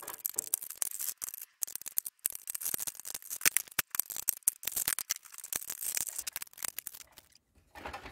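Screwdriver backing screws out of a plastic radio cassette player's case: a rapid run of small clicks and scrapes that stops briefly near the end.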